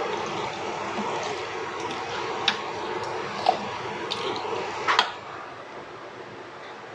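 A ladle stirring cubed lamb through coconut milk and curry paste in a large pot: wet squelching and sloshing, with a few sharp knocks of the ladle against the pot. It goes quieter after about five seconds.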